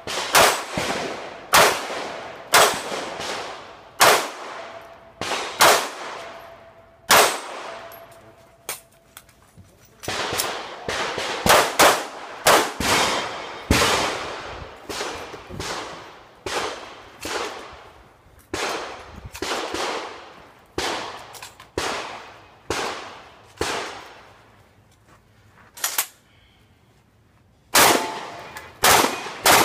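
Gunshots from pistols and shotguns: dozens of sharp shots in quick, uneven succession, each trailing off in an echo, with a short lull a little before the end.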